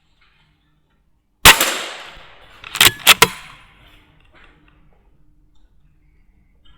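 A Weihrauch HW100 .22 pre-charged air rifle fires once, a sharp crack about a second and a half in that fades out over the next second or two. A little over a second later come three quick sharp metallic clicks.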